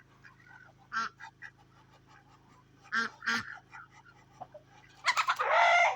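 Domestic ducks quacking as they come for bread: a few short quacks spaced a second or two apart, then a louder, longer call about five seconds in.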